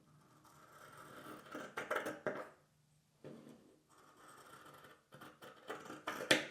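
Hands handling household things at close range: a few stretches of rustling and scraping, each about a second long with short pauses between them, and a couple of sharp clicks or knocks near the end.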